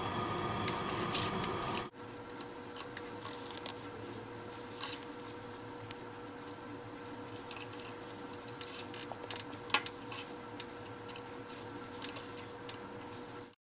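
Faint clicks and small rustles of new adhesive strips being peeled and pressed into an iPod Touch frame by hand, over a steady background hum. A louder hiss in the first two seconds stops abruptly at an edit cut.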